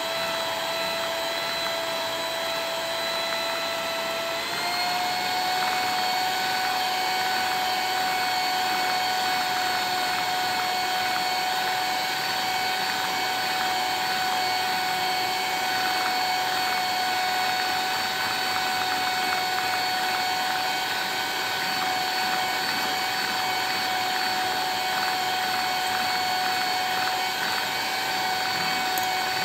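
Electric mixer motor running steadily with a whine. About four and a half seconds in, the whine steps up in pitch and holds there.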